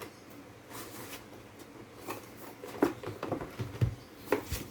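Retail packaging of a car charger being handled and opened: rustling, with several sharp clicks and taps in the second half.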